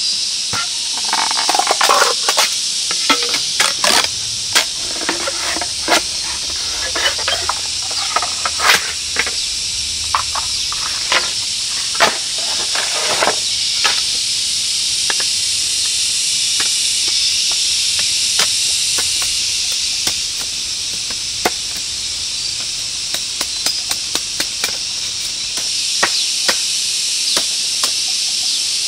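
A machete splitting and trimming a green bamboo pole into strips: sharp cracks and knocks of the blade and splitting wood, many in the first half and sparser later. Under it a steady high insect drone from the forest.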